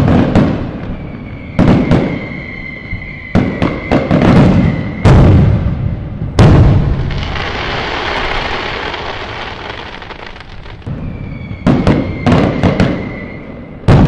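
Fireworks going off: a series of loud, sudden booms, each trailing off in an echo. A whistle holds near one pitch for a few seconds early on the rise and again near the end, and a long stretch of crackling fills the middle.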